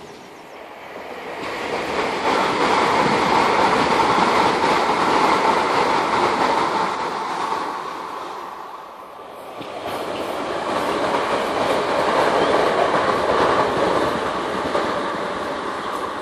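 Electric multiple-unit passenger train running past on the line, a steady rush of wheels on rails. The sound swells twice, dipping about nine seconds in.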